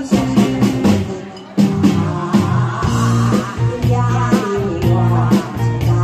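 A woman singing into a microphone over band accompaniment of electric guitar and a steady drum beat. The music dips for a moment about a second and a half in, then comes back in full.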